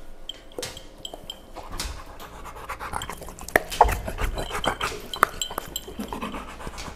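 Large chocolate Labrador-type dog panting and snuffling close up, with scattered sharp clicks and knocks, loudest a little past the middle.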